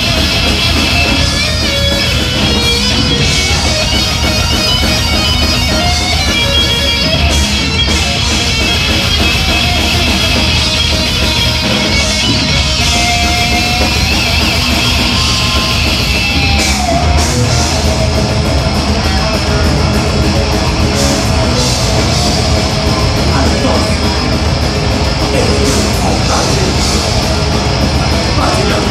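Thrash metal band playing live: loud electric guitars over a drum kit, one dense continuous wall of sound.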